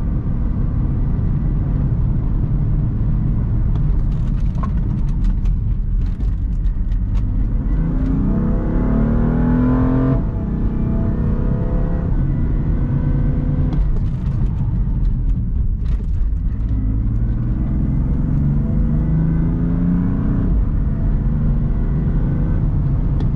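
BMW F80 M3's twin-turbo inline-six heard from inside the cabin, accelerating hard over road noise. The engine note rises twice and each time drops off abruptly, once about ten seconds in and again near the end, as the car is run up to speed for repeated hard stops that clear brake pad deposits from the rotors.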